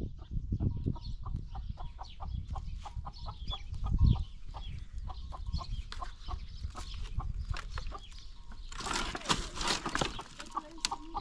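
Chickens clucking with short repeated calls. Near the end comes a louder dry crackle and clatter as sticks of firewood are pulled from a woodpile.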